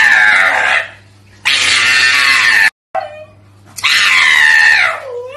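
A pug screaming while being held and handled: three long, shrill cries about a second each, each falling in pitch.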